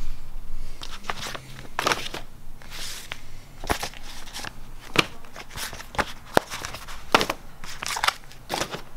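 Stacks of plastic-bagged magazines rustling and crinkling as they are picked up and shuffled through by hand, with several sharp clicks and taps along the way.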